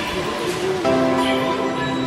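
Background music with held notes that change to a new chord a little under a second in.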